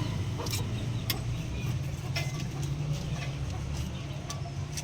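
A steady low engine hum with a handful of light, sharp metallic clicks and taps, typical of hand tools working on the valve rocker arms.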